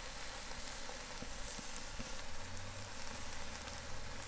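Marinated flank steak sizzling on the grill grate over hot charcoal briquettes: a steady hiss with scattered small crackles.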